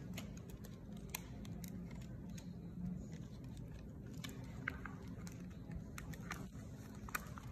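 Faint, scattered clicks and rustles of a toy plane's cardboard box and plastic packaging being handled and opened by hand.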